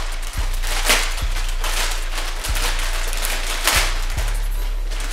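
A white plastic poly mailer bag being torn open and pulled apart by hand, with sharp rips and crinkles, over background music with a steady deep bass that cuts off at the very end.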